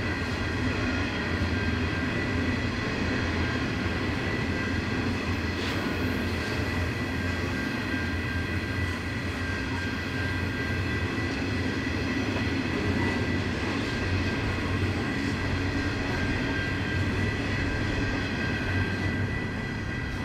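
Diesel train running on a 1 in 50 climb: a steady low engine rumble with several steady high whining tones over it, the level holding even throughout.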